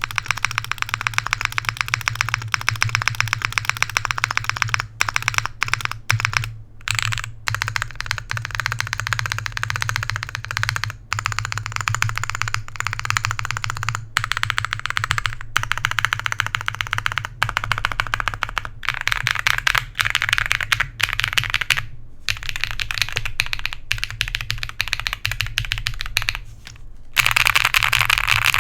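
Continuous fast typing on a custom mechanical keyboard with YOK Holy Panda tactile switches on an FR4 plate: a dense stream of key clacks with a few brief pauses.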